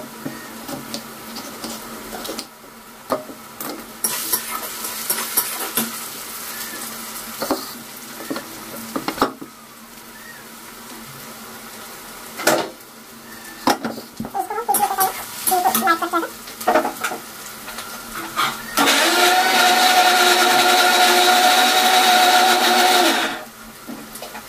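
Kitchen mixer-grinder motor running steadily for about four seconds near the end, grinding chopped tomatoes into a puree for the gravy, then cutting off suddenly. Before it there are scattered knocks and clatter of kitchen work over onions frying in oil.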